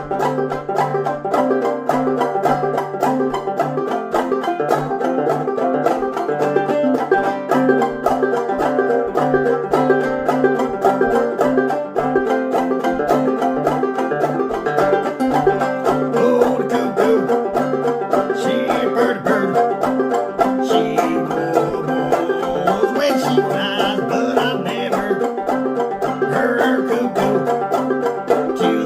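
Instrumental bluegrass music led by a rapidly picked banjo, with other string instruments underneath.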